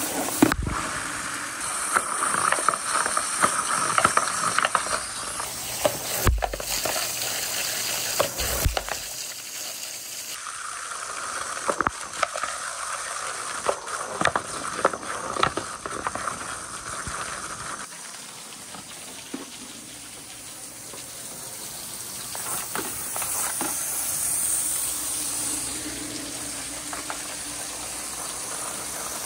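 Water gushing and splashing down metal rain-gutter chutes, with wooden balls rolling in the stream and knocking against the gutters every so often. The water's sound shifts in character a couple of times.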